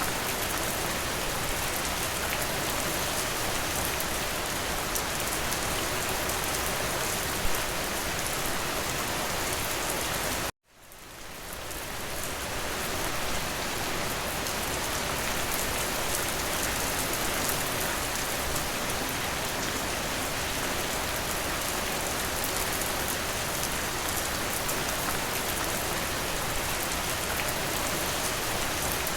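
Steady rain falling, an even hiss of drops. About ten seconds in it cuts out abruptly for an instant, then fades back up to full over a couple of seconds.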